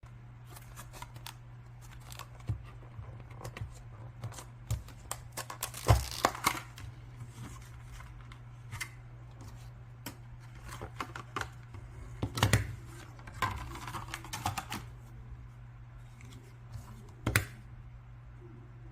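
Hands handling a small digital thermometer: scattered clicks, taps and brief rustles, with a few louder clusters of clicks, over a steady low electrical hum.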